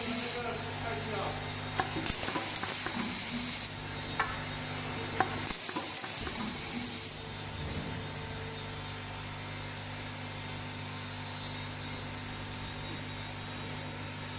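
Automatic cable tie machine at work: three short hisses, each a second or so long, with a few sharp clicks between them. A steady low hum runs under it all, and after about seven seconds only the hum remains.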